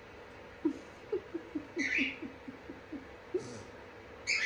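Sulphur-crested cockatoo making a quick run of about nine short, low, falling chuckle-like notes, with two brief harsh high squawks, one in the middle and one near the end.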